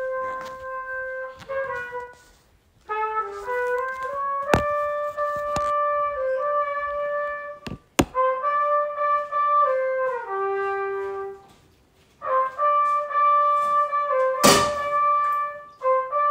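Solo trumpet playing a slow melody of held notes in short phrases, with two brief pauses between phrases. A few sharp knocks cut across it, the loudest about fourteen seconds in.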